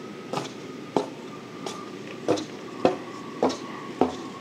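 A long staff knocking in the barrel of a muzzle-loading cannon as it is swabbed, about seven sharp knocks in an even rhythm a little under two a second.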